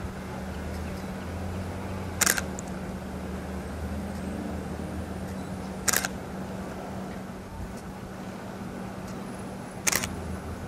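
Three camera shutter clicks, about four seconds apart, as frames are shot, over a steady low hum.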